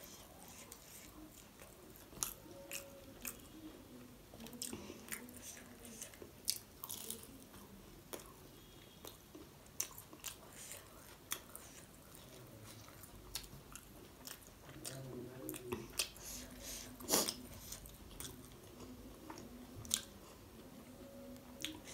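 Close-miked eating of fried momos: bites and chewing with many short, sharp crunchy clicks, the loudest about 17 seconds in.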